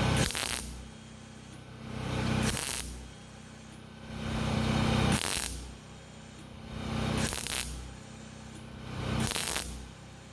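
Wire-feed welder laying short stitch welds on exhaust pipe, about five bursts roughly two seconds apart. Each weld hums and crackles for about a second, then stops.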